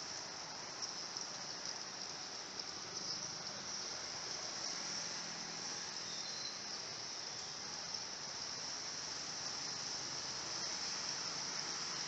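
Edible-nest swiftlets twittering: a dense, steady high-pitched chirring that never lets up, over a background hiss.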